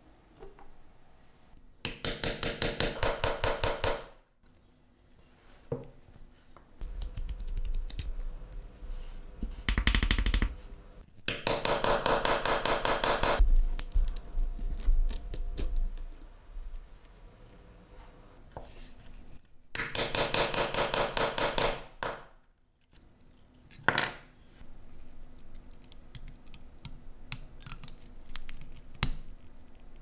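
Small metal hand tools working the rusted hinge of a Zippo lighter: three bursts of rapid metallic ticking, each about two seconds long, with single clicks and light scraping between them.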